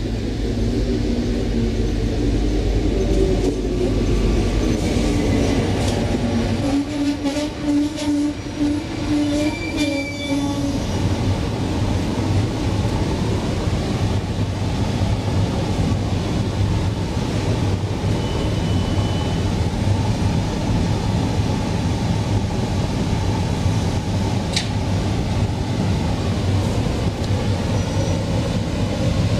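DB Class 420 S-Bahn electric multiple unit pulling into a station and stopping: an electric whine steps down in pitch as it slows and holds one note for a few seconds. After that comes a steady low hum while the train stands.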